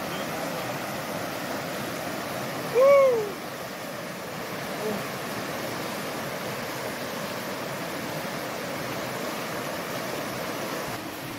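Shallow river rushing steadily over rocky rapids. About three seconds in, a single short call, loud over the water, rises and falls in pitch.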